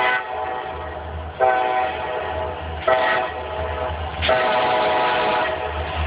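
Diesel freight locomotive's multi-chime horn sounding the grade-crossing signal: the end of one blast, then a long blast, a short one and a long one, over the low rumble of the locomotive.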